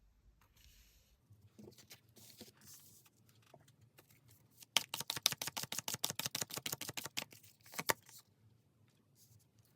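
Tarot cards being handled and shuffled: soft rustling of cards, then a rapid run of card clicks, about ten a second for some two and a half seconds, and one single sharp snap about a second before the end.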